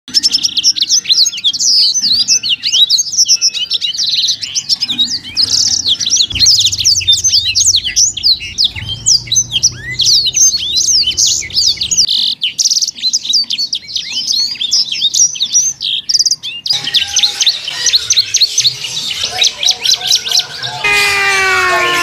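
Many caged songbirds chirping and singing at once, a dense overlapping chorus of rapid high chirps and whistles. The mix of calls changes abruptly several times.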